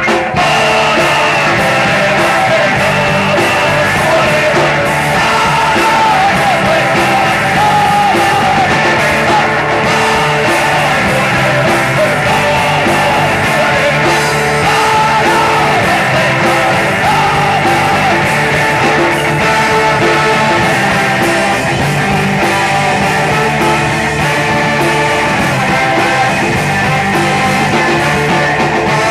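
Live ska band playing a loud, unbroken song, with singing over electric guitar, bass, drums, saxophone and trombone.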